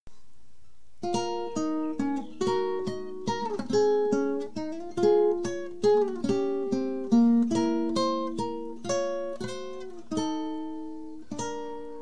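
Intro music: a melody of plucked acoustic guitar notes, picked one after another from about a second in, ending with two longer notes left to ring out.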